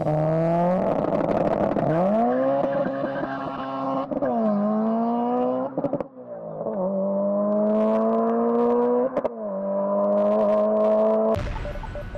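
Modified Subaru WRX turbocharged flat-four with a larger exhaust, accelerating hard through the gears: the engine note climbs, breaks briefly and drops at each of several upshifts, then cuts off about 11 seconds in.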